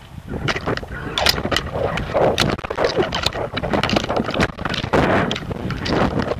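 Wind buffeting a camera mounted on a flying kite, with an irregular, fast clatter of rattles and flaps from the kite and its camera mount as it shakes in the air.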